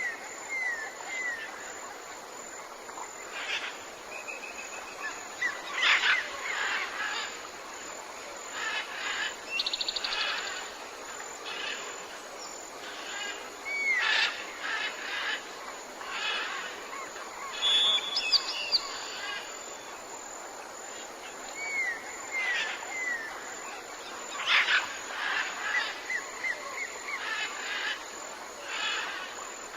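Tropical jungle birds calling over a steady background hiss, several kinds at once. There are series of short falling chirps, fast high trills, a whistled call about halfway through, and loud harsh calls every few seconds.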